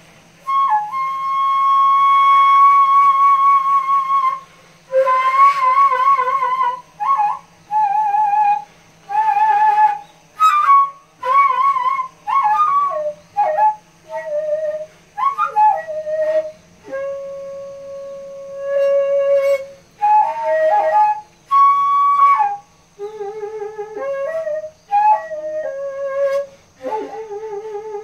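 Daegeum, the large Korean transverse bamboo flute, played solo in a slow melody: long held notes with wavering vibrato and sliding bends between notes, phrases broken by short pauses.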